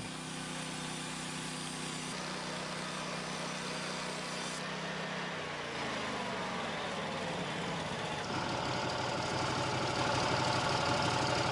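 Engine of a Norwood Lumbermate 2000 portable band sawmill running. Its pitch shifts about halfway through and settles into a higher steady tone in the last few seconds, slightly louder.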